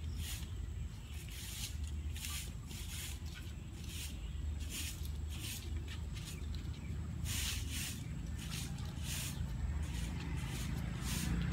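Two dogs eating from bowls: irregular crisp chewing and crunching noises, one to a few a second, over a steady low rumble.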